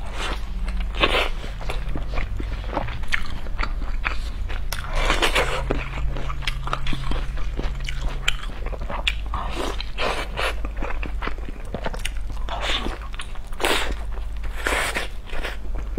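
Close-miked eating of large steamed buns (baozi): soft bites into the dough, then chewing, with many short wet mouth clicks throughout.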